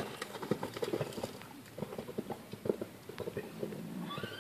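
Hoofbeats of a ridden horse on a sand arena surface, a run of dull thuds that grows fainter after the first second or so as the horse moves away.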